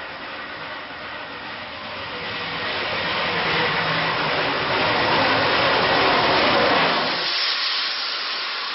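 Steam locomotive and its train running past: a noisy hiss and rumble that grows louder for the first six seconds. About seven seconds in, the low rumble drops away abruptly, leaving a thinner hiss.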